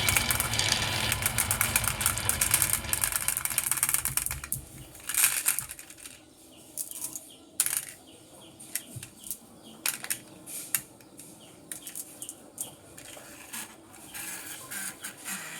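Marbles rolling and clattering down a marble run: a dense continuous rattle for about the first four seconds, then thinning to scattered clicks and clacks of single marbles knocking on the track.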